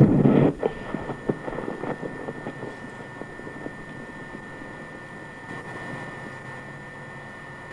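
Camcorder being handled and set down on the grass: a loud rustle that cuts off about half a second in, then a few knocks. After that, steady faint wind noise on the microphone with a thin high whine.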